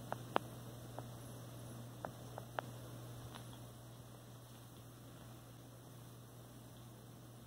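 Light taps and scuffs from a Siamese kitten and a tabby cat play-wrestling, a handful of short clicks in the first three seconds or so, over a steady low electrical hum.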